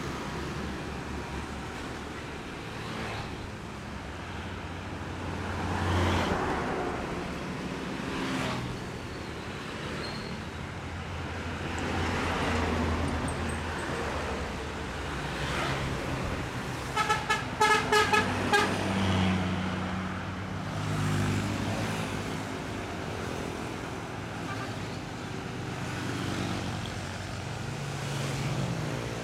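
Roadside traffic: the engines of passing trucks, buses and motorcycles running, swelling and fading as they go by. A little past halfway a vehicle horn sounds a quick run of about six short toots.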